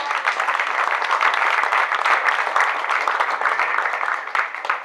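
Audience applauding, a dense patter of many hand claps that begins to die down near the end.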